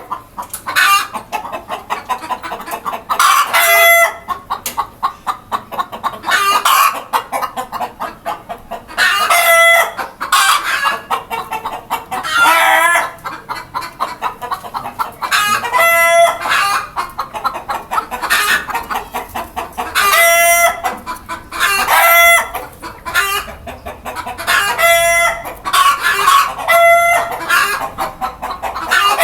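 A flock of desi chickens: roosters crow again and again, every few seconds, over continual hen clucking.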